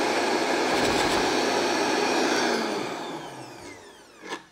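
Vitamix blender running, churning a thick mix of frozen acai, frozen banana and almond milk. It is switched off about two and a half seconds in, and the motor winds down with a falling whine. Near the end comes a knock as the lid is pulled off the jar.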